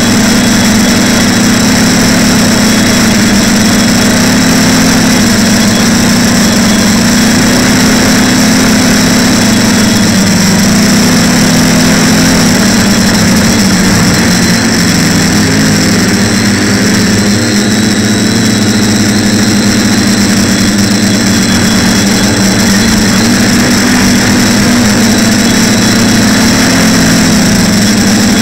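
TBS Discovery quadcopter's electric motors and propellers buzzing loudly in flight, the hum wavering up and down in pitch as the throttle changes, with a steady high whine above it.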